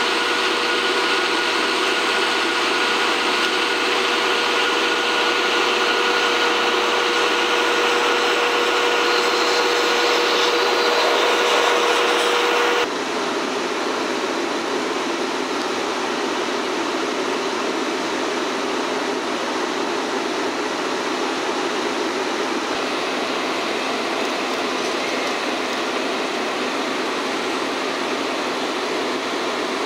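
D51 200 steam locomotive standing and then rolling slowly forward, giving a steady hiss with a faint steady tone in the first part. The sound changes abruptly about 13 seconds in, to an even hiss.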